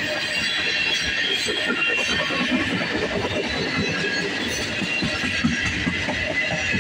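Freight train of tank cars rolling past close by, the steady noise of steel wheels on the rails with a high-pitched squeal from the wheels.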